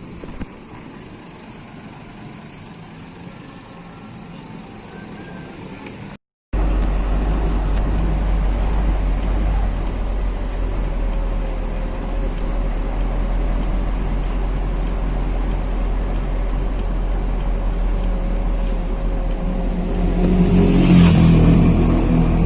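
Heavy truck running on the road: engine and road noise, quieter at first, then after a sudden break about six seconds in, a loud steady low rumble that grows louder with a hiss near the end.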